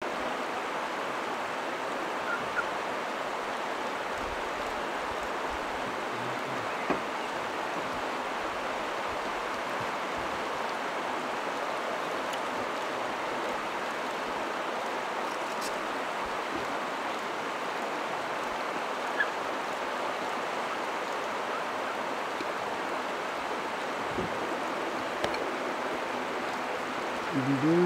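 Steady rush of shallow river water running over a stony bed, even and unbroken, with a couple of faint brief ticks.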